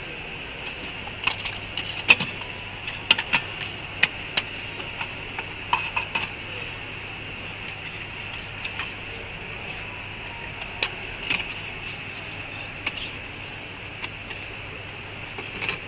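A metal spatula knocking and scraping on a flat steel griddle as an egg-wrapped Ramly burger is worked and folded, a series of sharp clicks in clusters over a steady hiss.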